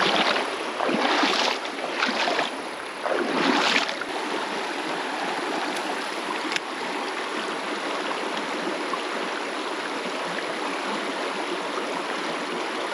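Bare feet wading through a shallow, gravel-bottomed creek: about four splashing steps in the first four seconds, then the steady rush of the flowing stream.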